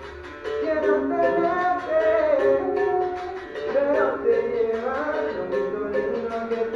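Berimbau struck in a steady rhythm, with a voice singing a gliding melody over it.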